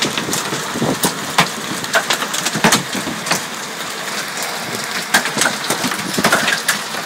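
Hailstorm pelting a shed: a steady hiss of rain and wind with many sharp, irregular knocks of hailstones striking the structure.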